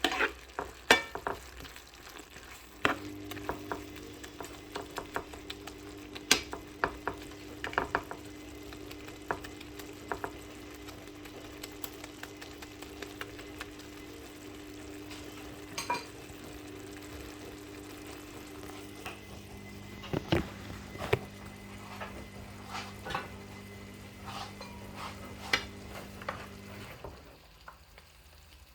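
Spoon stirring and scraping eggplant curry in a pan as it is cooked down until dry, with many quick clicks of the spoon against the pan over a faint sizzle. A steady low hum runs under it and stops near the end.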